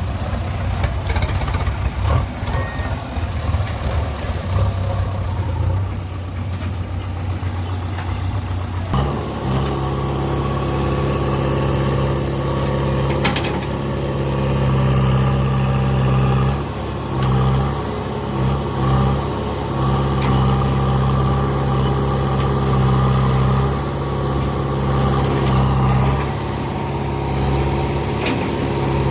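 Heavy diesel engine running: low and rough at first, then about nine seconds in it revs up to a steady, higher working note, which sags and recovers several times a little later under load.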